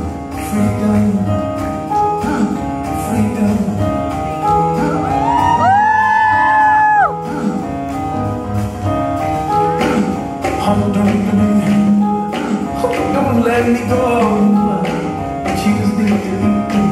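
Pop song playing: singing over a steady beat, with a long held vocal note about six seconds in.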